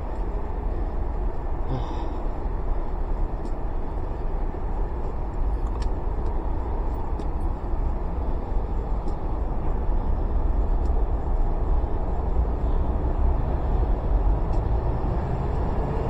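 Steady low rumble of wind on the microphone and a Honda PCX125 scooter running as it is ridden, growing a little louder in the second half.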